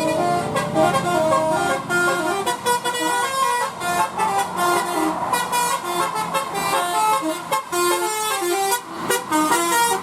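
Bus telolet horn, a set of multi-trumpet musical air horns, playing a quick melody of short, stepped notes one after another, with a brief break near the end.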